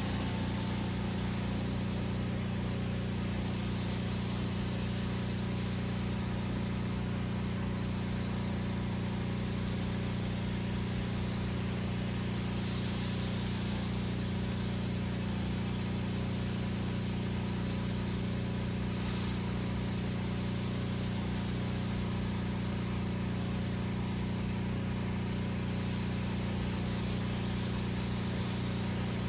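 Pressure washer's engine running steadily, with the hiss of the water jet.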